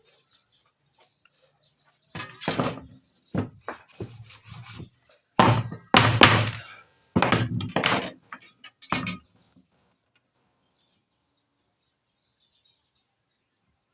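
A run of irregular, heavy thuds and knocks, some sharp and some drawn out, starting about two seconds in and stopping after about seven seconds.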